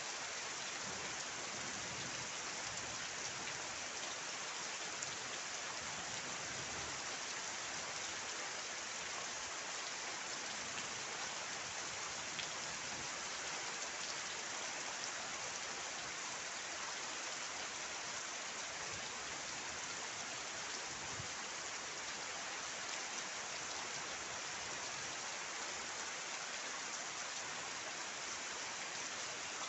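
Steady rain falling, an even hiss of many drops that holds constant throughout.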